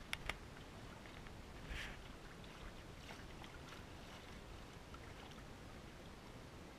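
Water rippling and swishing along the hull of a Fusion 15 sailing dinghy under way, faint and steady, with a couple of sharp clicks at the start and a brief louder swish about two seconds in.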